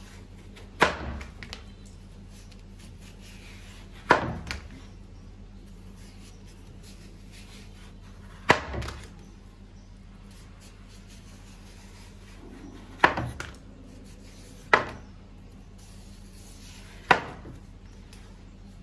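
Chef's knife striking a wooden cutting board as it finishes each downward slice through watermelon rind: six sharp knocks a few seconds apart, each trailing off briefly.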